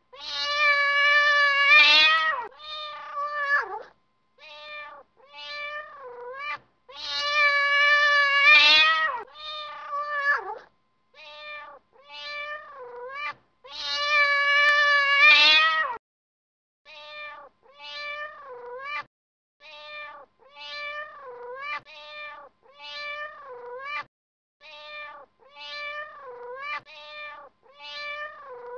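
Domestic cat meowing over and over: three long, drawn-out meows, each followed by a few short ones, then a steady run of short meows at about one a second.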